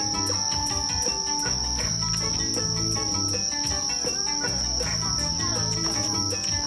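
Night insects singing in one steady, unbroken high trill, over the projection show's music playing through loudspeakers with a bassline and a melody of short notes.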